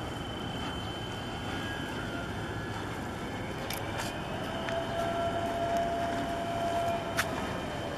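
Harbour ambience of wind and water with a steady distant hum; about halfway through a distant engine tone swells, holds and fades near the end, with a few faint clicks.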